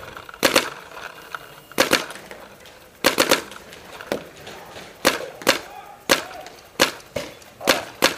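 Paintball fire: about ten sharp pops at irregular intervals, some in quick pairs, from paintball markers shooting.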